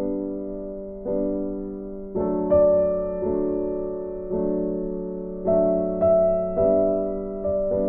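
Background music: soft solo piano playing slow chords, each struck and left to fade before the next.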